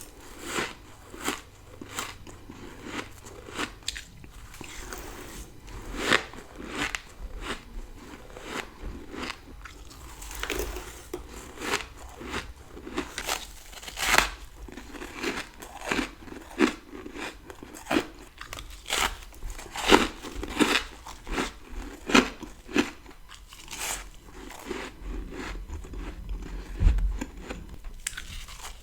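Close-up crunching and chewing of big mouthfuls of dry, powdery freezer frost: a long, irregular run of sharp crunches, some much louder than the rest.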